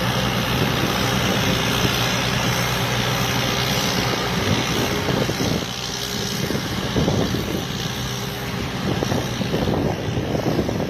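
Combine harvester's diesel engine running steadily; about halfway through the steady engine note weakens and gusty, rougher noise takes over.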